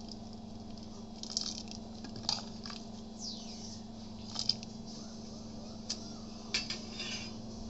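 Soft, scattered clinks and scrapes of a spoon against steel cooking pots, several times, over a steady low hum.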